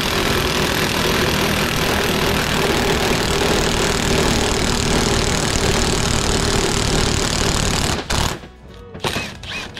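Milwaukee M18 cordless impact wrench running steadily on the centre bolt of a pulley puller, drawing the drive pulley off a MerCruiser raw water pump shaft. It stops suddenly about eight seconds in, then gives a couple of short bursts near the end.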